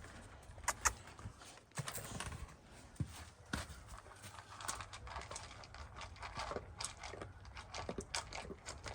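A dog's paws running and scrambling about, an irregular patter of clicks and light knocks.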